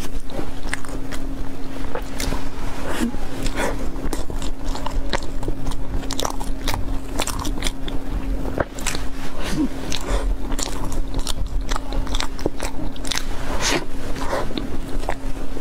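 Close-miked eating sounds of a person biting into and chewing a soft yellow roll: a quick run of sharp mouth clicks, several a second, over a steady low hum.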